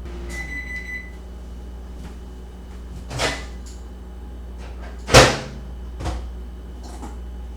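A short electronic beep about half a second in, then three knocks of a kitchen cupboard or appliance door being opened and shut, the middle one the loudest.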